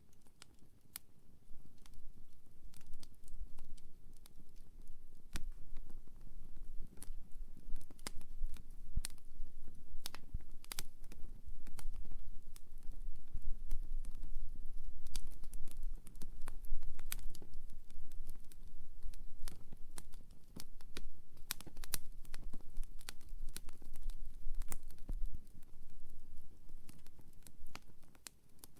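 Wood campfire crackling, with irregular sharp pops and snaps over a low rumble that fades out near the end.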